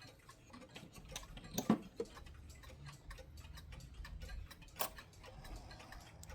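Malta short drop wall clock's pendulum movement ticking faintly and steadily, with two louder clicks about a second and a half in and near five seconds in.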